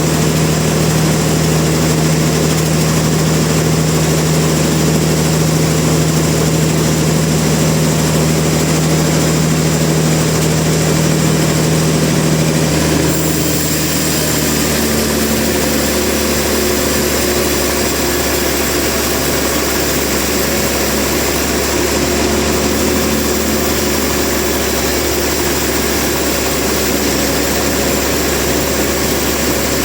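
Heavy machinery or an engine running steadily. About halfway through, a strong low hum drops out and the pitch of the running changes.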